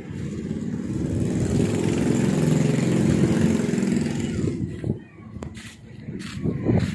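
A motor vehicle's engine running close by, growing louder over the first few seconds and then fading away about five seconds in. A shorter swell of engine sound comes near the end.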